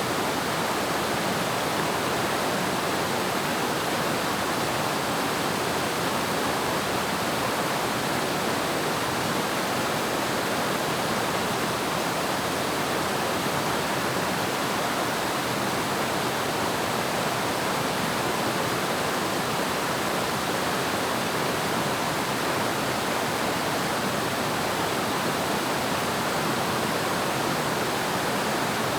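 Waterfall pouring steadily, an even rush of falling water with no change in level.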